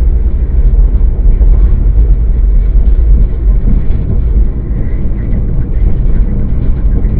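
Steady low rumble of a car on the move, road and engine noise, picked up inside the cabin by a dashboard camera's microphone.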